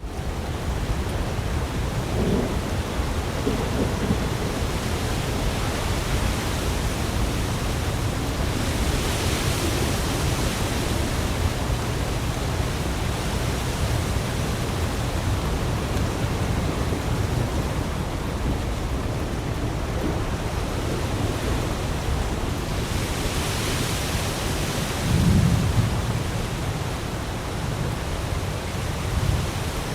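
Snowmelt water rushing steadily, with a heavy low rumble underneath. The hiss brightens twice, once about a third of the way in and again near the end.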